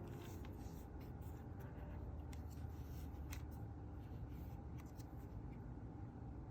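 Hands handling a Canon EOS R50 mirrorless camera body: light rubbing with scattered small clicks as its controls are worked.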